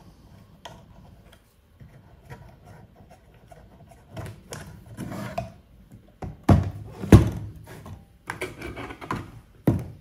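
Handling noise from an acrylic power-supply case and the metal casing of a switching power supply being worked apart: light rubbing and clicking, with a few sharp knocks, the loudest two about six and a half and seven seconds in and another near the end.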